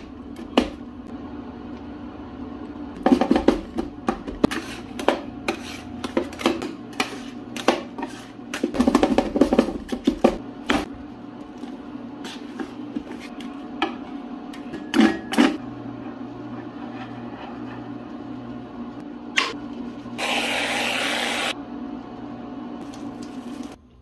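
Two metal spatulas chopping peanut butter cups into cream on the frozen steel plate of a rolled ice cream machine: sharp clacks of steel on steel in quick flurries, then scraping as the mixture is spread thin. Near the end a steady hiss lasts about a second and a half.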